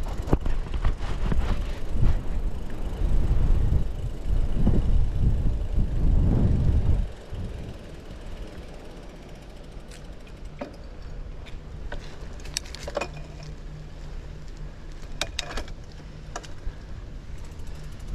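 Riding noise from a moving bicycle: a loud, uneven low rumble of wind on the microphone for about the first seven seconds. It then drops to a quieter steady low hum with a few scattered clicks.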